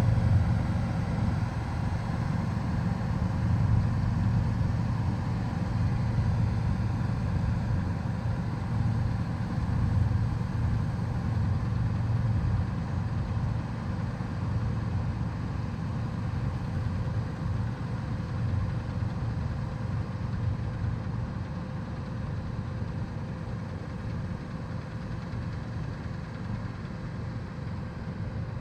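Heavy farm machinery's diesel engine running steadily, a low rumble that slowly grows quieter.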